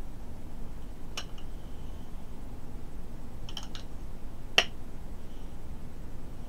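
A few sharp plastic-and-metal clicks and snaps from a vape box mod being handled while 18650 lithium-ion batteries are fitted into it. There is one click about a second in, a quick pair after three and a half seconds, and the loudest snap about four and a half seconds in.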